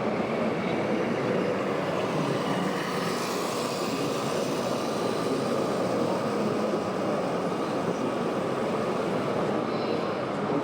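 Steady, dense mechanical running noise of RC model trucks and construction machines, with no breaks or single standout events.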